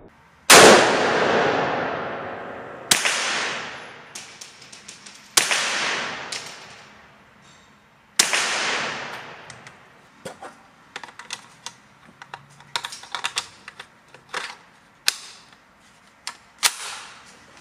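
Four shots from a Baikal MP161-K semi-automatic .22 LR rifle, fired slowly about two and a half seconds apart, each ringing out for a second or two in the indoor range. A run of lighter clicks and knocks follows, with two sharper cracks near the end.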